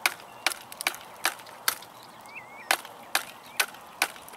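A weathered, solid piece of pine wood being struck with a wooden stick, nine sharp dry knocks about two a second, with a pause of about a second in the middle. The wood is being broken open to look for resin-rich fatwood.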